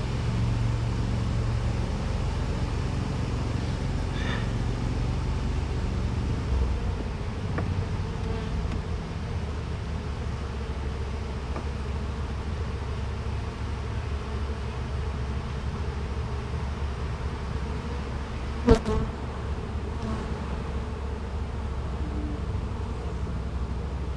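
Honey bees buzzing in a steady low drone around an opened hive. One sharp knock sounds about three-quarters of the way through.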